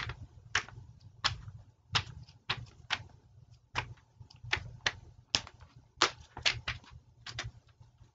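Irregular clicks of keys being pressed on a computer keyboard, a few a second, over a low steady hum.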